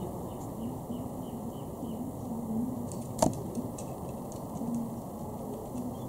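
Raccoon climbing a wooden bird-feeder post: one sharp click about three seconds in, then a few lighter clicks and taps, over a steady low background noise.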